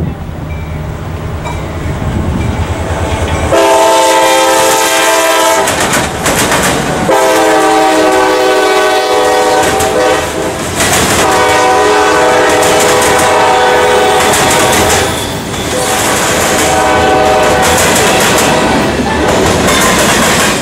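CSX freight train passing. A low rumble builds for about three seconds, then the locomotive's multi-note air horn sounds in several long blasts. Under the horn, the wheels of hopper and tank cars clatter and clack steadily over the rail joints and the crossing.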